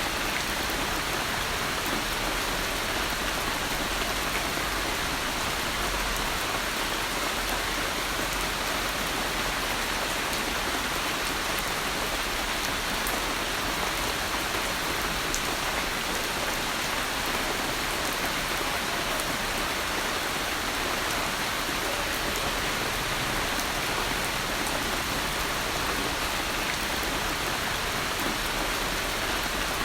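Steady heavy rain falling, an even hiss with fine scattered drop ticks.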